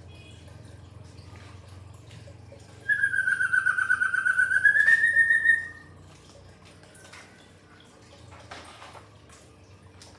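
A pet songbird gives one long warbling whistle of about three seconds, dipping slightly in pitch and then rising, a few seconds in.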